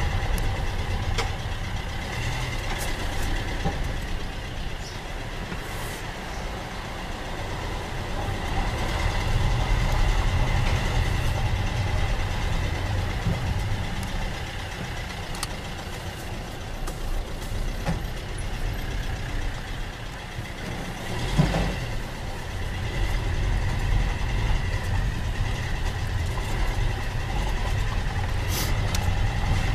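Car engine and road noise heard from inside the cabin while driving slowly, a steady low rumble that swells and eases, with a single sharp knock about two-thirds of the way through.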